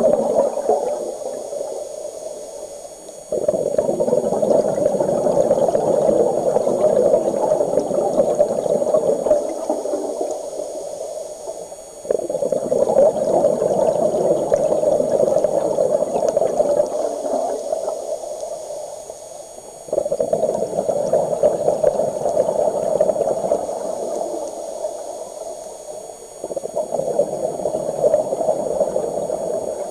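Scuba regulator exhaust bubbles from a diver breathing underwater: a gurgling rush of bubbles starts abruptly with each exhalation and fades over several seconds. This repeats about every eight seconds, four times, and one exhalation is already dying away at the start.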